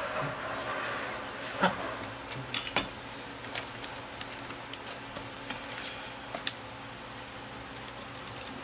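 Water pouring into an aluminium cooking pot trails off right at the start. Then come a few scattered light clicks and knocks of kitchen handling, the loudest about a second and a half in, over a faint steady hum.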